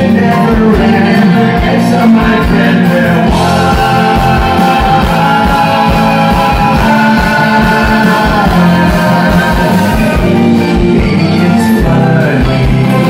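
Live rock band playing loudly: several voices singing together over electric guitars, keyboard and a steady drum beat.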